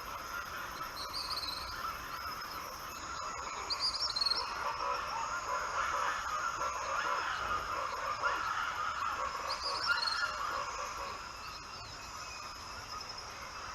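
Wetland birds calling in a chattering chorus, loudest in the middle, with short high chirps every few seconds.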